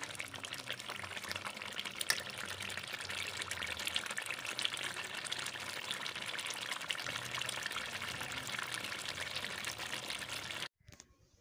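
Thick chicken-and-spinach curry boiling hard in a large metal pot in its last minutes of cooking, giving a dense crackle of popping bubbles and spatters. It cuts off abruptly near the end.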